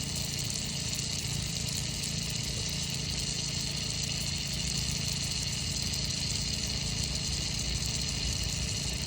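Aerosol can of WD-40 spraying continuously into a sticky lock: a steady, unbroken hiss.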